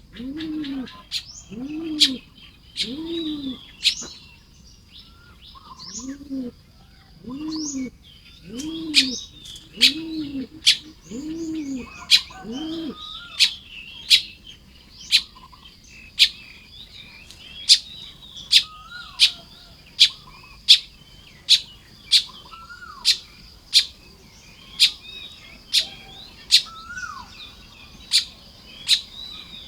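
Baya weavers chattering and chirping busily while nest-building, with sharp chirps repeating about every two-thirds of a second through the second half. For the first half, another bird gives a deep hooting note about once a second.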